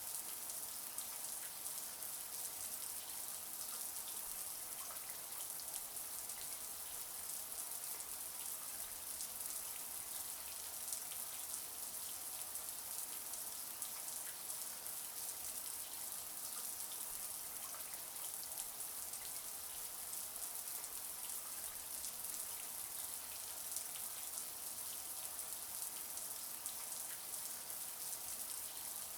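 Shower water running steadily, spray pattering down in an even hiss with fine scattered drop ticks.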